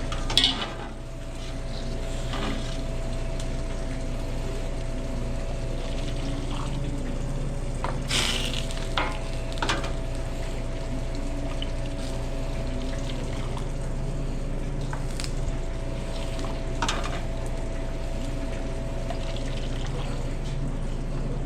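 Food frying in a restaurant kitchen, an even sizzle over a steady background hum. A few sharp knocks of kitchen utensils cut in, the loudest about 8 seconds in.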